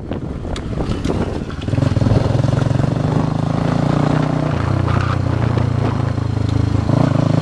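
Motorbike engine running under way, with wind buffeting the microphone at first. About two seconds in, the engine note comes up louder and steady. It drops in pitch around four and a half seconds in and rises again near the end.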